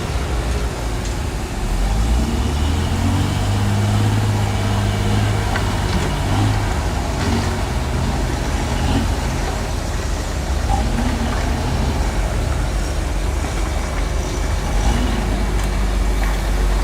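Heavy diesel engine of construction machinery running steadily, its low drone growing louder under load about a second and a half in.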